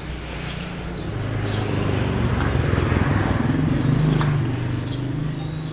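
A motor vehicle's engine hum passing by, growing louder to a peak about four seconds in and then fading.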